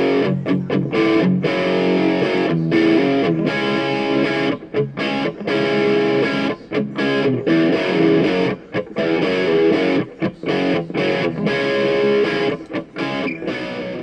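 Background music: a distorted electric guitar strumming chords.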